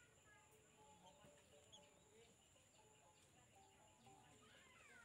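Very faint bird calls: short chirps scattered throughout, with a few falling calls near the end.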